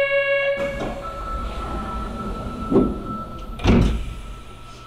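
Sapporo Municipal Subway train at the platform: electronic chime tones end about half a second in, then the doors slide shut with two thumps about a second apart, the second the louder. A steady high tone sounds under them.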